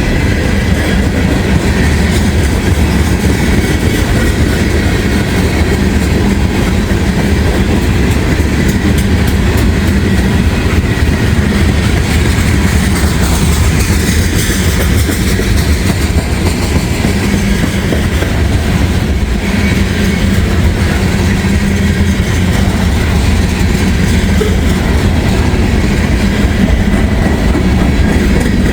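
Loaded freight cars rolling past close by: a steady, loud rumble of steel wheels on the rails.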